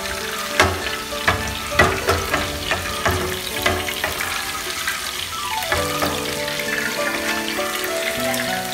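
Fat sizzling in a nonstick frying pan while wooden chopsticks click and scrape against the pan about every half second, stopping about six seconds in. Background music plays throughout.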